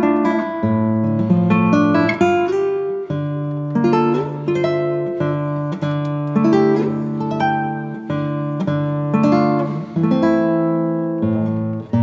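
Background music: an acoustic guitar playing plucked chords, with a new chord about every second.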